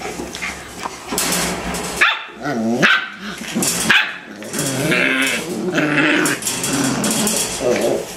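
Eight-week-old Rottweiler puppies play-fighting, with wavering growls and several sharp yips and barks.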